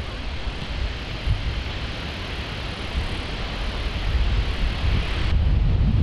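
Forest fire burning: a steady rushing roar with a rough low rumble, like wind on the microphone. The sound changes abruptly about five seconds in.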